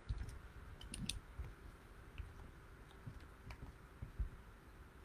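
Faint handling noise: soft low thumps and a few light clicks, the loudest thump about four seconds in.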